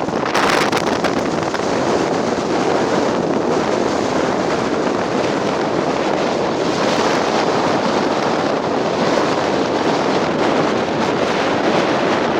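Strong coastal wind blowing hard across the microphone: a loud, steady rush of wind noise, with a harsher gust about half a second in.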